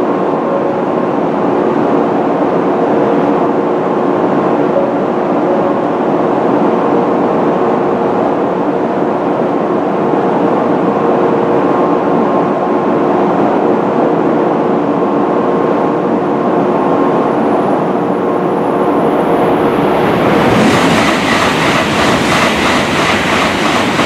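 N700A Shinkansen passing through the station at speed. A steady rumble with a few held tones as it approaches, then about twenty seconds in a sudden loud rush of air and rapid wheel beats as the cars sweep past.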